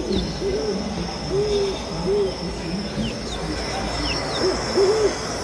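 Nature soundscape of the kind played in a park-themed exhibit: about ten short, soft owl-like hoots, each rising and falling, over a steady high insect-like trill.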